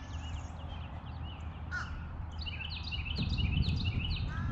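Wild birds calling, with short high call notes that come in a fast, repeated run from about halfway through. A low rumble on the microphone grows louder at the same time.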